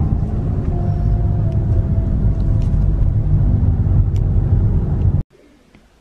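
Steady low road and engine rumble inside a moving car's cabin, cutting off suddenly about five seconds in.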